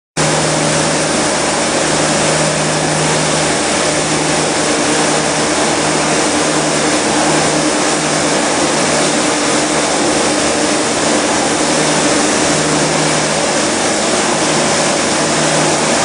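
Walk-behind industrial dry vacuum cleaner running steadily at full suction, its hose wand sucking up spilled white powder from a tiled floor: a loud, even rush of air over a low motor hum.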